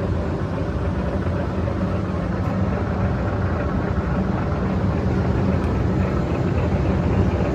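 POREBA TRP93/6M 36-inch engine lathe running at about 160 RPM, its 31.5-inch four-jaw chuck spinning. A steady hum from the main motor and headstock gearing.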